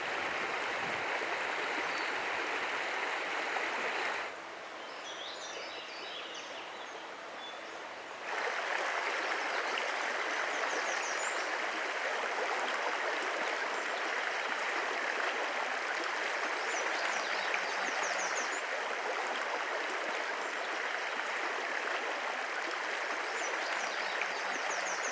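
Water of a small trout stream rushing over a shallow rocky riffle: a steady rushing noise, quieter for about four seconds partway through.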